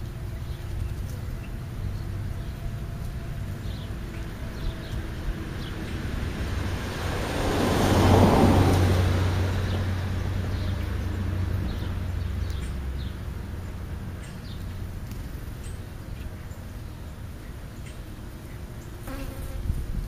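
A vehicle passing by, swelling to its loudest about eight seconds in and then fading, over a low steady hum.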